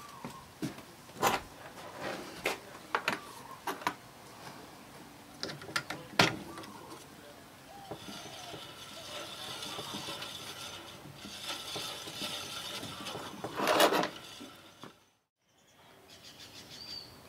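Ryobi 9-inch bandsaw's wheels and blade being turned by hand to check the blade tracking. First come scattered sharp clicks and knocks of handling the machine, then, about halfway in, a steady whir for several seconds as the wheels spin.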